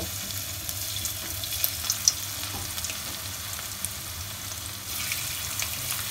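Maida-and-cornflour-coated paneer cubes sizzling in hot oil in a steel kadai as more cubes are dropped in one by one, a steady hiss with scattered small pops. The sizzle grows a little louder about five seconds in.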